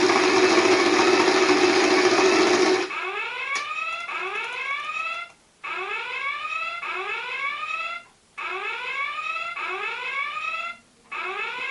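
A flying alarm clock goes off. Its propeller spins with a loud, steady whir for about three seconds and then cuts out abruptly. After that its electronic alarm carries on alone: rising chirps about two a second, in groups of about five, with a short gap between groups.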